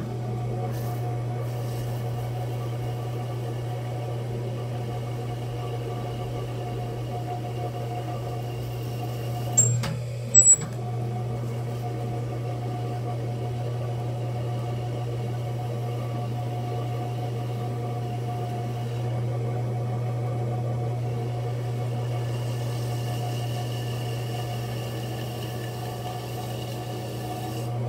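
Electric potter's wheel running with a steady motor hum, broken by two short sharp knocks about ten seconds in.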